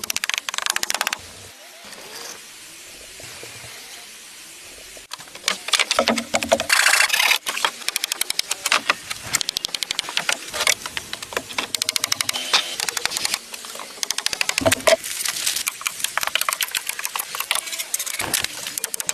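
Fast, dense runs of clicks and knocks from building work with tools and wood, with a quieter stretch between about one and five seconds in.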